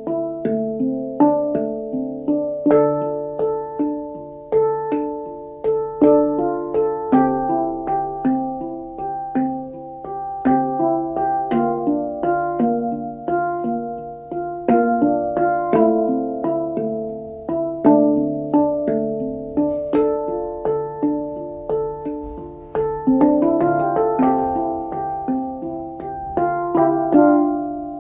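D Kurd handpan in nitride steel, 9 notes, played by hand: a flowing melody of struck, ringing steel notes, several a second, over a steady low note. About 23 seconds in, a quick rising run of notes.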